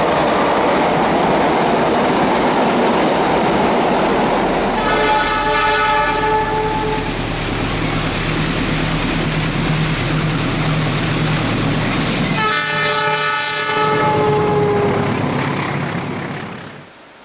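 Diesel train running close by with a steady rumble and wheel rattle, its multi-tone air horn sounding two long blasts, about five and about twelve seconds in. The sound cuts off just before the end.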